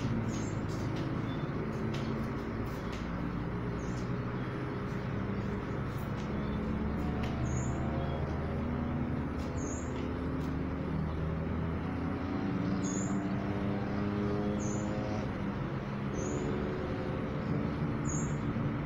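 A steady low vehicle-like rumble with a wavering hum over it. From about seven seconds in, a small bird gives a short high chirp roughly every two seconds.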